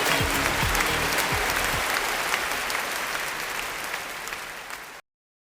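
Pop music with a deep kick drum ending in the first two seconds, giving way to applause that fades out steadily until the sound cuts off about five seconds in.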